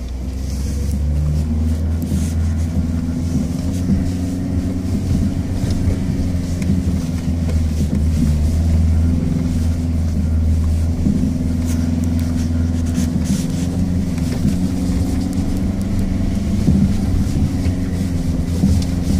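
Mercedes-Benz GLA 220 d's four-cylinder diesel engine running under load as the car drives a rutted dirt track, heard from inside the cabin; it swells over the first couple of seconds and then holds steady. Scattered short knocks and rattles come through over the bumps.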